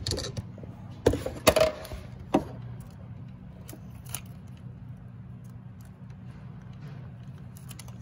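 A few sharp clicks and a short metallic clatter in the first couple of seconds, then a few faint ticks of hand work in the engine bay, over a steady low hum.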